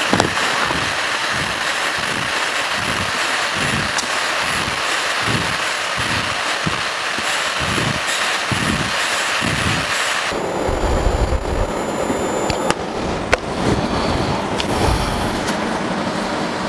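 TIG (argon) welding arc on a pipe, a steady hiss with a regular low pulse about one and a half times a second. About ten seconds in the sound turns duller, with a low rumble and a few clicks.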